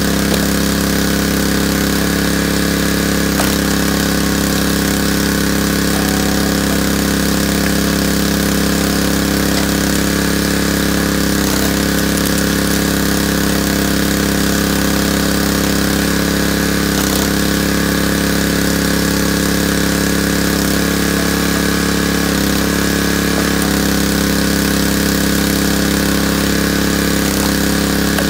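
Small gas engine on a hydraulic log splitter running steadily, its note shifting briefly every few seconds as the splitter is worked through logs.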